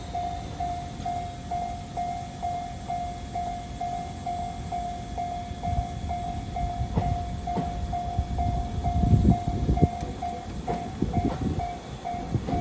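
Japanese railroad crossing's electronic warning bell dinging steadily at about three rings a second. From about halfway in, a train passes with a rumble and the clack of wheels over rail joints, growing louder in the second half.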